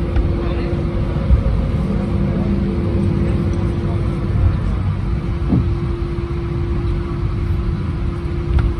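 Steady low vehicle rumble under a constant hum; the hum drops out briefly near the middle and returns.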